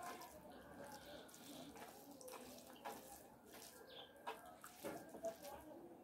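Faint wet mouth sounds of someone chewing rice, with a few soft smacks and clicks in the second half.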